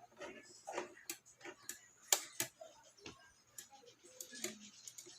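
Irregular light clicks and taps, with a sharper pair a little after two seconds in, over a faint steady hum.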